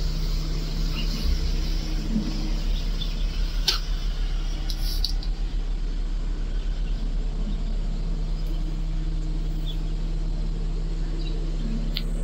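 Mobile crane's engine running steadily, heard from inside the operator's cab, with one sharp click about three and a half seconds in.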